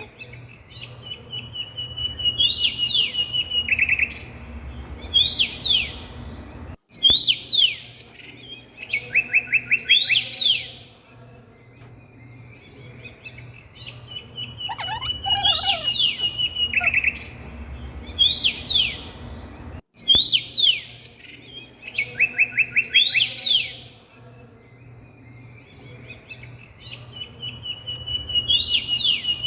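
Songbirds chirping and singing: a short steady trill followed by quick downward-sweeping chirps, the same sequence coming round again about every 13 seconds, with a brief cut near 7 and 20 seconds, like a looped recording.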